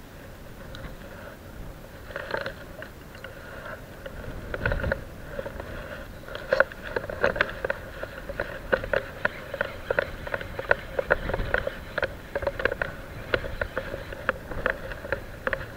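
Spinning reel being cranked, with irregular clicking that picks up about six seconds in and runs at several clicks a second, as a hooked fish is reeled in.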